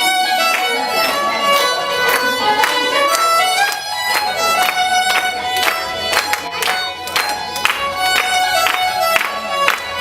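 Lively music led by violin, with a steady beat.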